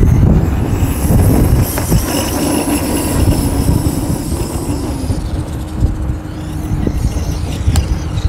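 Traxxas E-Revo 2.0 RC monster truck's brushless electric motor whining at a high pitch as it drives through sand on paddle tyres, with a heavy low rumble underneath. The whine fades after about five seconds as the truck gets farther off.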